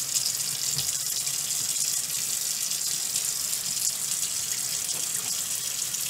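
Tap water running steadily from a faucet into a deep utility sink, filling it with clear water for a rinse.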